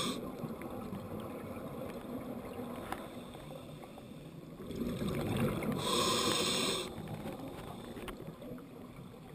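A scuba diver's breathing heard underwater: a low rumble throughout, and a burst of exhaled bubbles from the regulator about six seconds in, lasting about a second.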